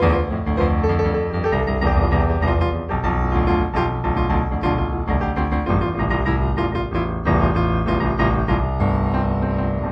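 Improvised piano music, a run of struck notes over held low chords.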